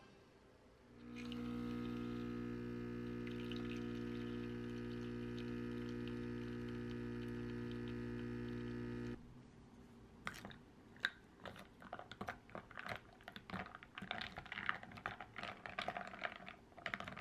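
Capsule coffee machine's pump running with a steady hum while it brews coffee over ice, cutting off abruptly after about eight seconds. Then ice cubes clink against the glass in quick, irregular taps as the iced coffee is stirred.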